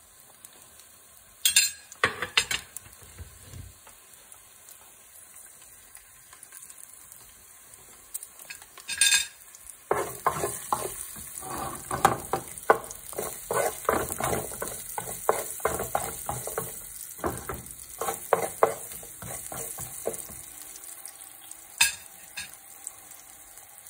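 Chopped garlic and cumin seeds sizzling in hot oil in a frying pan as the tempering roasts, with a few sharp knocks of a utensil against the pan and, from about ten seconds in, quick scraping strokes as the garlic is stirred for about ten seconds.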